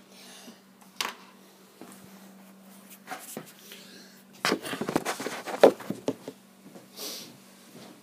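Hands handling test wiring, fuse and plastic connectors: a sharp click about a second in, then a burst of clicking and rattling around the middle, over a faint steady hum, with a short hiss near the end.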